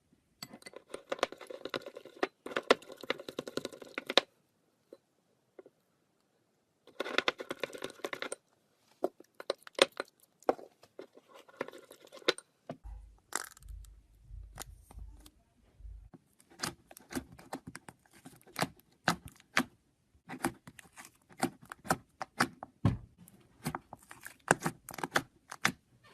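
Slime being squeezed, poked and stretched by hand close to the microphone, giving bursts of dense crackling and sticky popping. After a short pause of a couple of seconds, scattered clicks and pops follow, with a few dull handling thumps in the middle.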